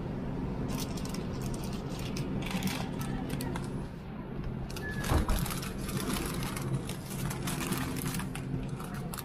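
Car running with a steady low engine hum, heard from inside, with a run of irregular small clicks and rattles over it and a louder knock about five seconds in.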